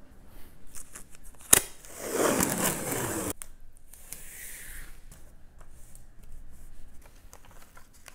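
Blue painter's tape pulled off its roll in one long rip of about a second and a half, after a sharp click, cutting off suddenly. Softer tearing and rustling of tape and paper follow as strips and sheets are stuck to the wall.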